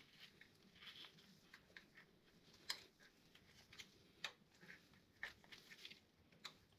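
Faint, scattered clicks and scrapes of a screwdriver tip prying the old crankshaft oil seal out of its seat in the engine block, one click a little louder about two and a half seconds in.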